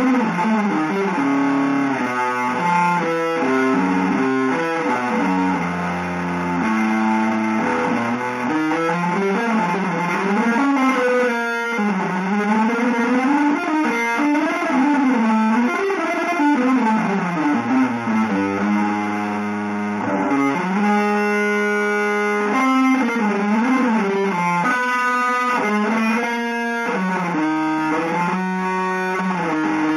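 Electric guitar playing a slow line whose pitch slides up and down in long swoops, between steadily held notes.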